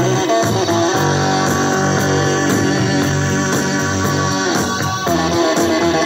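Guitar-based music with bass played through the speakers of a 1984 Uher Power Port 2 portable stereo, its original 4-inch drivers replaced with Panasonic coaxial drivers and its original tweeters disconnected.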